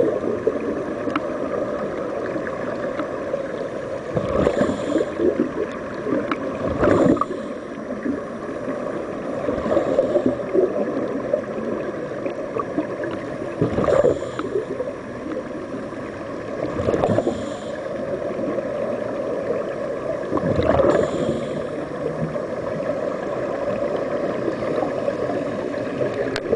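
Air bubbling underwater: a steady rush of bubbles, heard through the water, with louder surges of bubbling about every three to four seconds.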